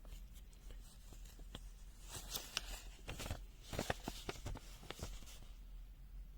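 Faint rustling and light crackling of a folded paper user manual being handled and opened, in a cluster of short crackles about two to five seconds in.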